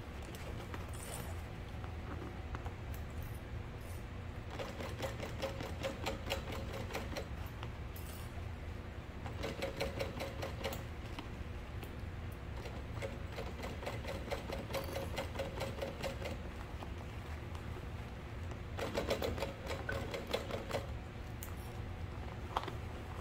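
Juki sewing machine topstitching in about four runs of a few seconds each: a fast, even clatter of the needle that stops and starts again as the bag is shifted. A low hum sits under the stitching.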